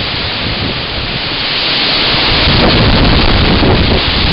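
Loud hurricane wind and wind-driven rain, a steady rushing noise. It swells about two seconds in as a gust arrives with a low rumble.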